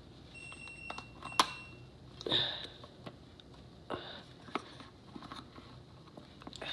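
Plastic clicks and handling rustles as a camera and its batteries are fiddled with, with one sharp click about a second and a half in. A high steady tone sounds for about a second and a half near the start.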